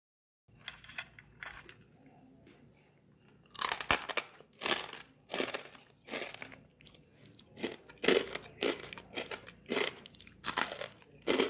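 Crisp fried moong dal murukku being bitten and chewed: faint crackles at first, then loud crunches about one and a half a second from a few seconds in.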